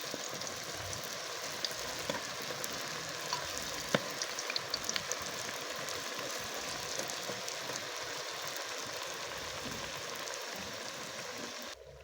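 Mandazi dough deep-frying in hot cooking oil: a steady sizzle with scattered small pops, and one sharper click about four seconds in. The sizzle cuts off abruptly just before the end.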